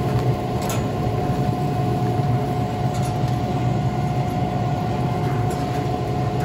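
Steady mechanical hum with a thin constant whine from the running Weber SmokeFire EX6 pellet grill's fan, with a couple of light clicks of metal tongs against the grill grate.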